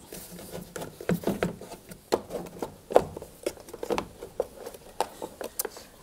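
Irregular plastic clicks, knocks and scrapes as a tumble dryer's plastic pump-and-float housing is worked loose by hand and pulled out past the cabinet frame.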